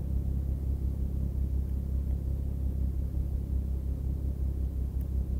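Steady low rumbling hum with no distinct events.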